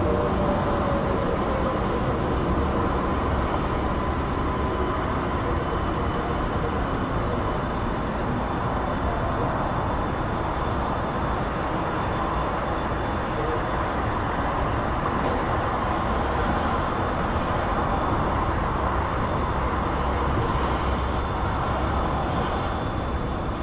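Continuous busy motorway traffic: a steady, unbroken wash of tyre and engine noise. In the first couple of seconds one vehicle's pitch falls as it passes.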